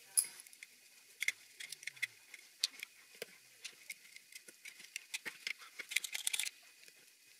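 Small irregular clicks and light scrapes of a screw and wire being fitted to the metal sieve mesh on the end of a plastic waste pipe, with a quick flurry of clicks near the end.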